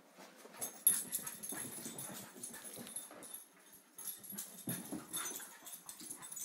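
Two dogs chasing and play-fighting: a rapid, irregular clatter of paws scrabbling and thumping on the floor, mixed with the dogs' whimpering play noises, with a sharp knock about a second in.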